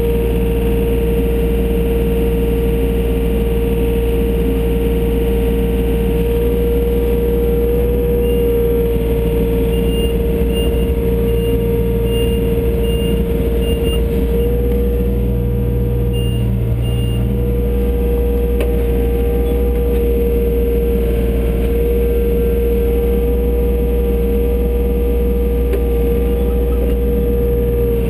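John Deere 35D mini excavator's diesel engine running steadily under load, heard from inside the cab, with a steady whine over its rumble. A high-pitched alarm beeps in short, evenly spaced runs in the middle and again near the end.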